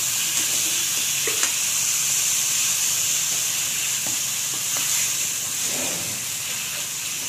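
Chopped tomatoes sizzling in hot oil with onion and spice paste in a kadai, a steady frying hiss, stirred with a steel slotted spatula that scrapes and clicks against the pan a few times.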